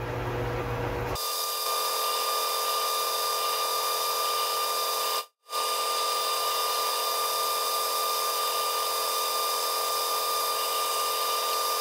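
Metal lathe running while a twist drill in the tailstock chuck bores into the end of a spinning metal rod, a steady whine. The sound changes abruptly about a second in and cuts out for an instant near the middle.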